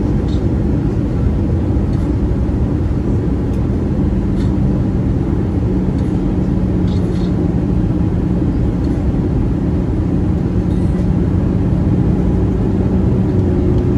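Steady cabin noise inside an Airbus A320-214 in flight: the constant rush of airflow with the low, even hum of its CFM56 engines.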